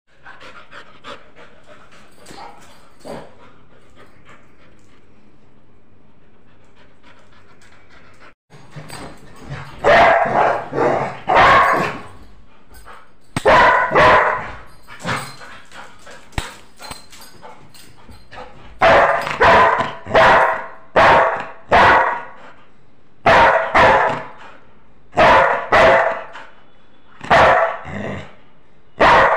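A yellow Labrador retriever barking. It is fairly quiet for the first several seconds, then from about ten seconds in gives loud barks in short runs of two or three, with brief pauses between.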